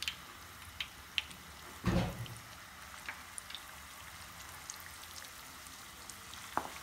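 Coated chicken pieces frying in hot oil: a soft, steady sizzle with scattered small crackling pops, and one louder thud about two seconds in.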